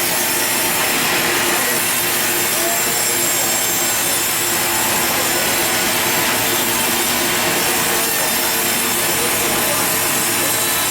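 Sawmill saw blade cutting steadily through a large log, a continuous even rasping noise with a faint steady whine.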